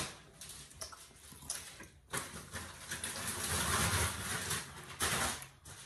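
Close-up chewing and crunching of crispy deep-fried pork intestine (chicharon bulaklak), a steady crunch for about three seconds starting about two seconds in.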